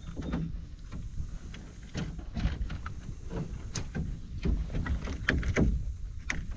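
Scattered, irregular knocks and bumps in an aluminium-free open canoe as a freshly caught flathead is being dispatched, over a low wind rumble on the microphone.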